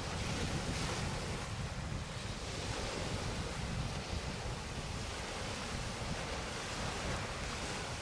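Wind buffeting the microphone over small waves washing onto a shingle beach: a steady, even noise with a low rumble.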